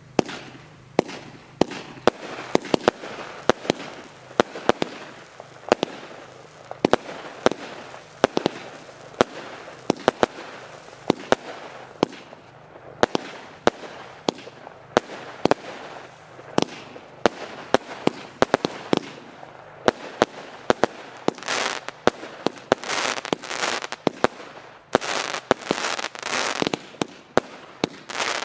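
Weco 'Podium' fireworks compound firing: a rapid string of sharp bangs as shots burst, with crackling in between. In the last several seconds, longer stretches of dense crackle join the bangs.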